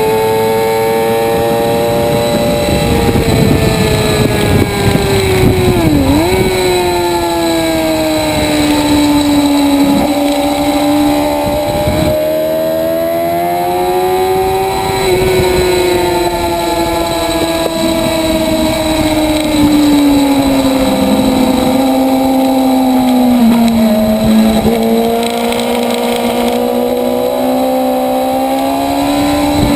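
Motorcycle engine at high revs, heard on board at track speed over wind noise. Its pitch rises and falls continuously through the lap, with several brief sharp dips at gear changes.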